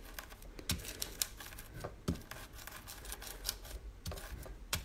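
Dried cochineal beetles being crushed and ground under a glass muller on paper: irregular small crunches and clicks, with a few duller knocks of the glass on the table.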